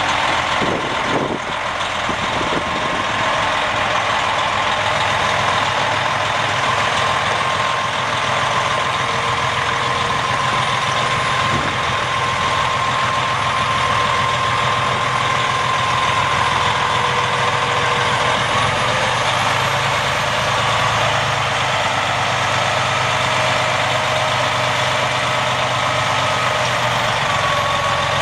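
Detroit Diesel Series 60 12.7-litre inline-six turbo diesel of a Freightliner Columbia semi truck idling steadily, with a steady whine above the engine note.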